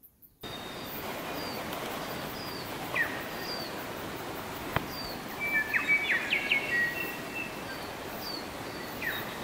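Birds calling over a steady rushing outdoor background: short falling chirps repeated every half second or so, with a burst of varied whistled notes around the middle. One sharp click about halfway through.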